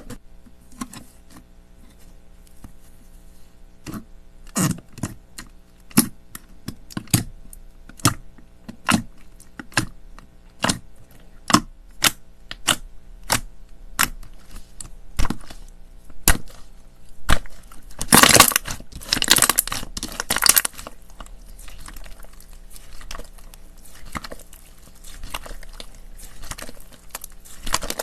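Clay slime being pressed and worked by hand, giving sharp pops and clicks about once a second, then a few seconds of dense crackling near the middle, over a faint steady hum.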